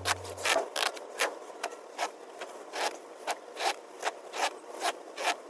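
Foam handlebar grip cover, wet with soapy water, squeaking and rubbing against the motorcycle's handlebar grip as hands twist and push it into place. The strokes come in an even rhythm of about two or three a second.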